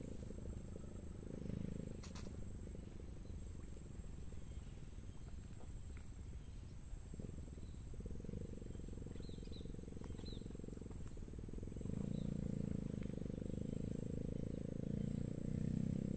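A steady high-pitched insect drone over a low rumble that grows louder in the last few seconds.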